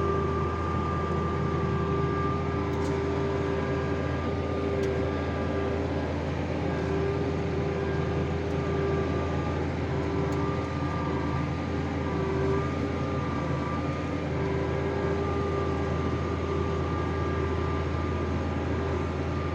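Tractor engine running steadily at a constant low speed, a continuous hum with a steady whine over it, as the machine works slowly through tall grass.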